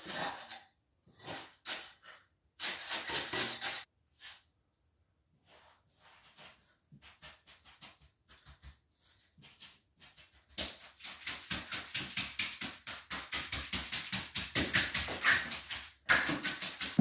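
A trowel scraping and packing wet concrete into a wooden curb form in scattered strokes. About ten seconds in, a quick run of back-and-forth float strokes starts, about five a second, smoothing the top of the concrete curb and growing louder toward the end.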